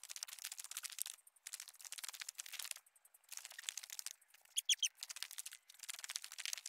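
Crunching and rustling from a hiker climbing a steep trail, in crackling stretches of about a second with brief pauses between them. A bird gives a short chirp of two or three quick notes about two-thirds of the way through.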